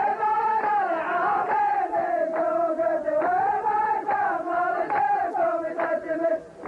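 A chorus of men chanting a poem's verse in unison, the way the lines of men do in a Saudi muhawara poetry duel. It is one drawn-out melodic chant that breaks off briefly near the end.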